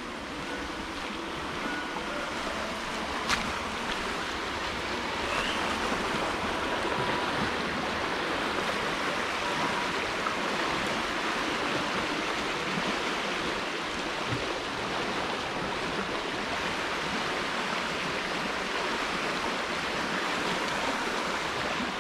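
Steady rushing of a shallow river flowing over rocks, with one sharp click about three seconds in.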